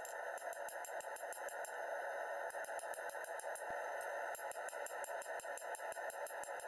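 Hand hammer striking a red-hot 1070 steel sword blade on an anvil in a quick, even run of blows, several a second, drawing out the taper toward the tip. A steady rushing noise runs underneath.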